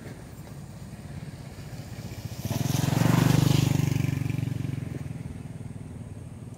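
A motorbike driving past, its engine growing louder, peaking about three seconds in, then fading away.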